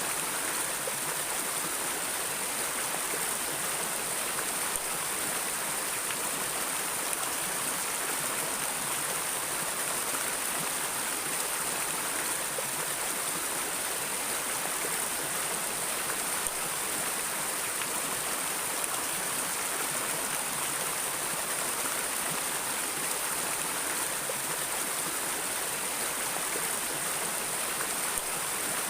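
Flowing water running steadily, an even, unbroken rushing hiss.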